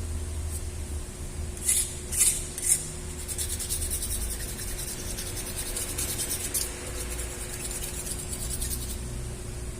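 Hand scraping and rubbing on a metal engine surface: three short scrapes, then quick, even rubbing strokes lasting about six seconds.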